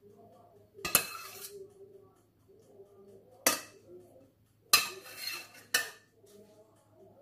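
Metal spoon clinking and scraping against a stainless steel pot while the last of a béchamel sauce is scraped out: four sharp clinks, with scraping after the first and the third.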